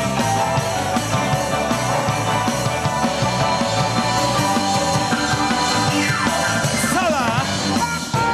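Blues-rock band playing live: electric guitar, bass guitar, keyboards and drums. About six seconds in, a lead line slides down in pitch and then wavers with wide vibrato.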